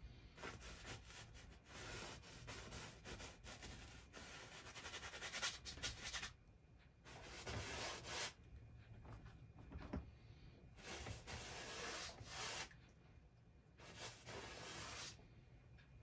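Flat paintbrush scrubbing oil paint onto canvas. The rubbing strokes run steadily for about six seconds, then come in three shorter spells.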